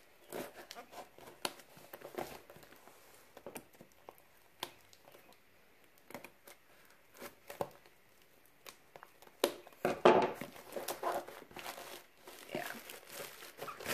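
Scissors snipping through packing tape and string on a long cardboard box, with scattered clicks and crinkling of tape and cardboard. About ten seconds in comes a louder run of tearing and crackling as the cardboard end is bent and pulled open.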